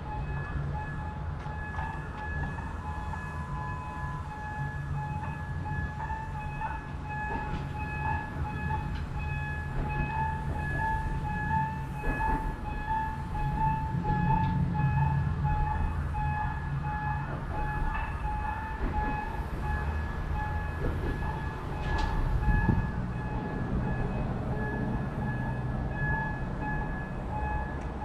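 Steam locomotive C58 363 of the Paleo Express, with its train, rumbling steadily as it rolls slowly away into the depot. A steady, pulsing high tone sounds over the rumble throughout, with a few light knocks, the sharpest about 22 seconds in.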